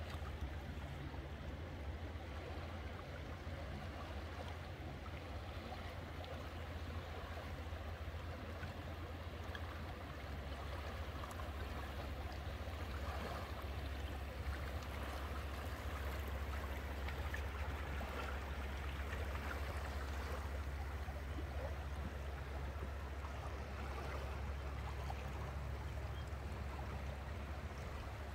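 Water rushing and gurgling along a boat's hull while it moves through a strong tidal current, over a steady low drone; the rushing grows a little louder partway through.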